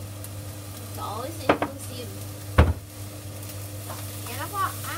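Fried rice sizzling in a frying pan as a wooden spatula stirs and tosses it, with two sharp knocks about one and a half and two and a half seconds in.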